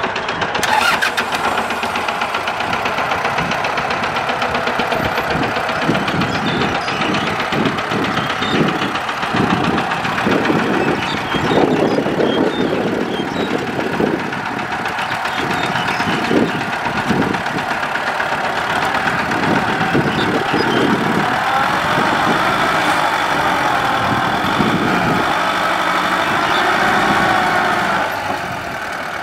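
Kubota M6040SU tractor's four-cylinder diesel engine running under load as it pushes a combine harvester stuck in mud, the engine note swelling and pulsing unevenly as the wheels work in the mud.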